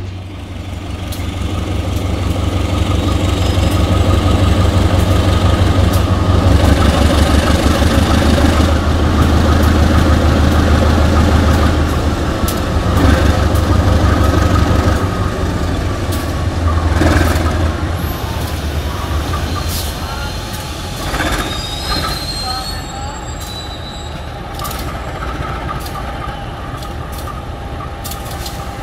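Diesel engine of a CC 203 diesel-electric locomotive running during a pre-departure engine test, with a deep steady hum. It grows louder over the first few seconds, stays high through the middle, then eases back in the second half.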